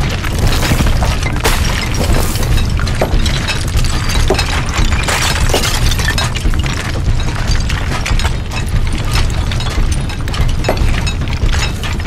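Several miners' picks and hammers striking rock: a dense, irregular clatter of sharp hits and cracking stone over a steady low rumble.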